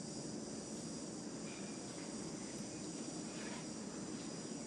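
Steady outdoor chorus of insects: a high, even drone of crickets or cicadas over a constant low rumble.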